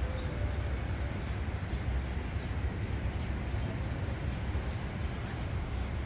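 Domestic goose grazing, its bill giving faint clicks as it plucks at the grass, over a steady low rumble.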